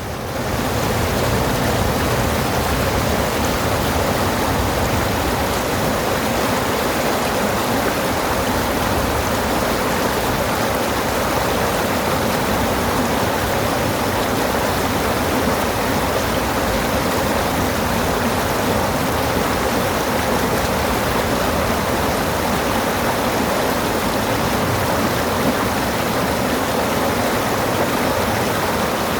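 Flowing water making a steady, even rush with no breaks.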